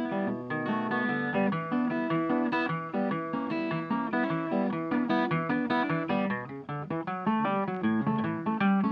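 Background music led by guitar, a quick run of plucked notes.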